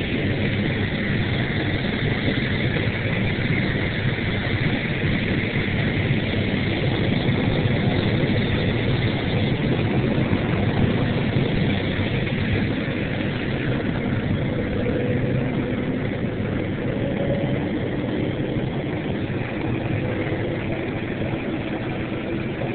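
Steady drone of a John Deere 9760 combine's engine and machinery, heard from inside the cab while harvesting corn with a 12-row header.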